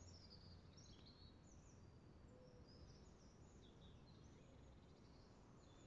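Near silence: outdoor background with faint, scattered high-pitched bird chirps.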